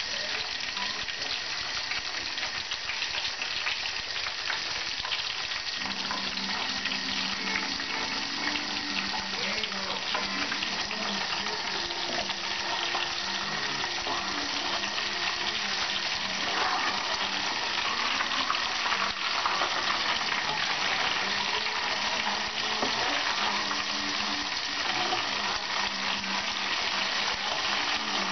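Snacks deep-frying in a pan of hot oil: a steady, dense crackling sizzle.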